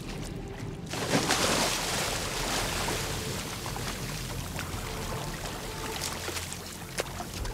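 Water splashing and sloshing as a person wades into ice water, starting about a second in, over a low steady hum.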